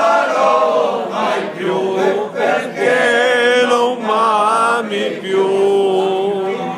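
A group of men singing a song together without accompaniment, several voices at once, holding long notes between short breaths, with one long held note near the end.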